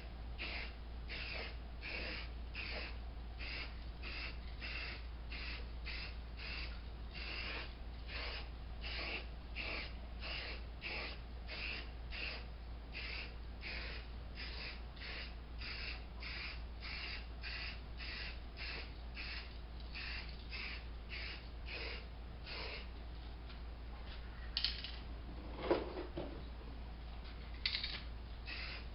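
Rhythmic scraping strokes, about three a second, as of a hand tool or abrasive worked back and forth over a hard surface. A few sharper knocks sound near the end, under a steady low hum.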